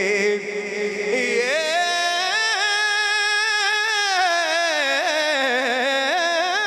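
A man singing a naat solo into a microphone, drawing out one long wordless melismatic note. The note climbs about a second and a half in, is held, then slides back down near the end.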